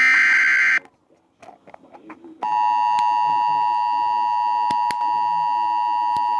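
Emergency Alert System broadcast: a shrill, screechy digital SAME header burst ends under a second in. After a short pause, about two and a half seconds in, the steady two-tone EAS attention signal starts and holds, the alarm that comes before a warning message.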